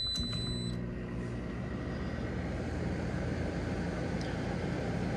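A 10,000 BTU Frigidaire window air conditioner starting up. A short control-panel beep ends in the first second, then the motor hum and the air noise build over the next couple of seconds and settle into a steady run.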